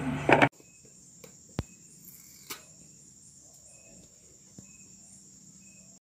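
Faint insect chirping, like crickets: a steady high trill with short chirps repeating about once a second. A few sharp clicks fall over it, and a brief loud sound ends abruptly just after the start.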